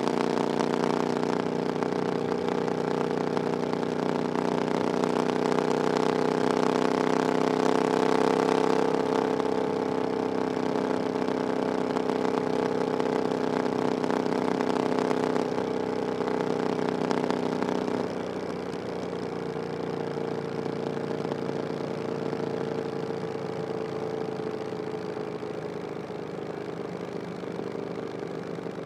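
Triumph Bonneville Scrambler 900's 900cc parallel-twin engine with an aftermarket "VW pipes" exhaust, running at low, fairly steady revs. Its level drops suddenly about 18 seconds in and then eases off slowly.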